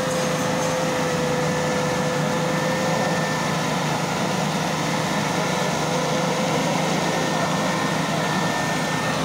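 Engine of a 4x4 off-road vehicle running steadily at low speed close by, a constant unchanging hum with no revving.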